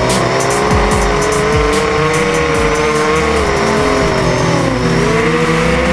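Racing quadcopter motors whining, their pitch sliding up and down with the throttle, under electronic music with a steady beat.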